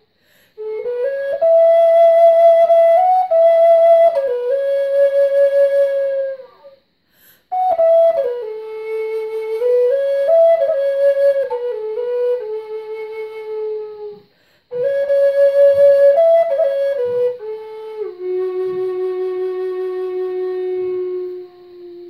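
Wooden Native American style flute in F# playing a slow melody of stepwise, slurred notes in three phrases. Each phrase is followed by a short pause for breath, and the melody ends on a long held low note.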